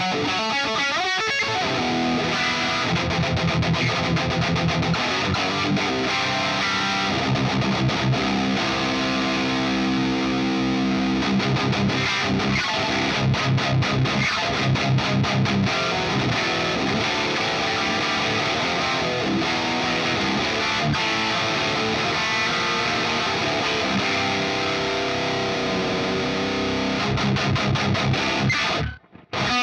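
Electric guitar with Seymour Duncan Jupiter humbuckers, tuned to drop C and played through a high-gain Revv Generator amp with heavy distortion, riffing without a break. The sound cuts out briefly just before the end.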